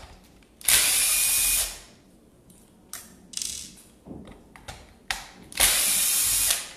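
Cordless drill-driver with a Phillips PH2 bit running in two bursts of about a second each, backing screws out of a circular saw's motor housing. Light clicks and knocks of handling come between the bursts.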